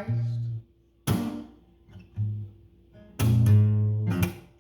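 Guitar strummed in a few separate chords with short gaps between them, each with a low note ringing under it.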